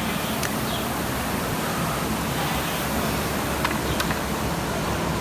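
Concept2 rowing machine's air-fan flywheel spinning under a hard effort, a steady whooshing rush, with a couple of faint ticks about three and a half to four seconds in.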